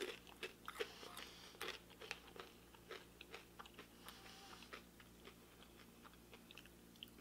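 Crisp air-fried bow tie pasta chips crunching as they are bitten and chewed: a run of quiet, sharp crunches that thins out after about three seconds.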